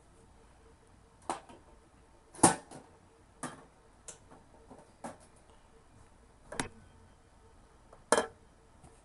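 Handling noise from a sneaker being turned and bumped close to a webcam: about seven sharp, irregular knocks and clicks. The loudest comes about two and a half seconds in.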